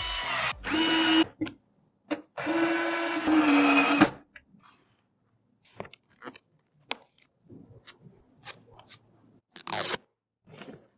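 Small electric screwdriver running in two short bursts of about a second and a half each, driving screws during a PC build, followed by scattered light clicks and taps of parts being handled.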